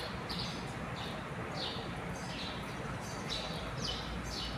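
A small bird chirping over and over: short, high chirps, each falling in pitch, about one or two a second, over a low steady hum.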